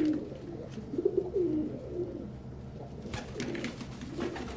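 Domestic pigeons cooing: a cock's nest call, inviting his hen to the nest box. There are short bursts of rustling a little after three seconds and again near the end.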